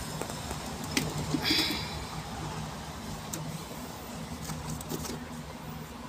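Handling noise from the plastic detergent dispenser housing of a front-loading washing machine: a few clicks and a short scrape about one and a half seconds in, over a steady low hum.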